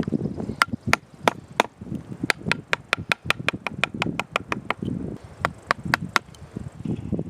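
Carving chisel or gouge being struck with a mallet into pine wood: a series of sharp, ringing taps that speed up to about six a second in the middle, then slow to a few spaced strikes before stopping.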